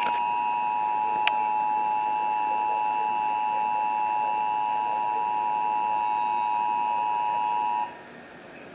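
Emergency Alert System two-tone attention signal: two steady tones sounded together, held for about eight seconds, that cut off abruptly near the end. It warns that an emergency alert message is about to be read. A brief click sounds about a second in.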